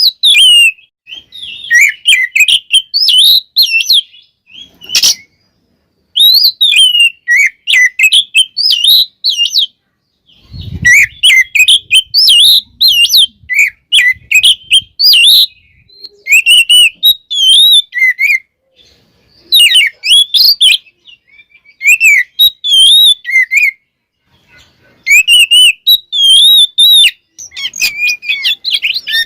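Oriental magpie-robin (kacer) singing hard in bursts of rapid, varied whistles, chirps and trills, separated by short pauses. One sharp click and one low thump come in about five and ten seconds in.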